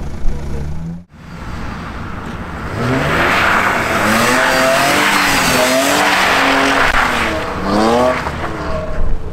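A car drifting: the engine revs rise and fall over and over while the tyres screech, from about three seconds in until near the end.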